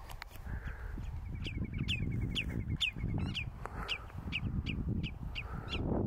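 Common redshank calling in flight: a quick run of short notes, then sharp, falling calls repeated about twice a second.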